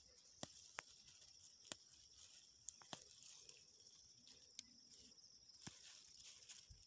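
Near silence, with a few faint sharp clicks of leafy plant stems being handled and snapped as wild greens are picked by hand, over a faint steady high-pitched hum.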